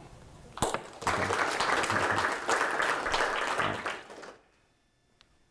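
Audience applauding for about three seconds, starting about a second in and stopping abruptly.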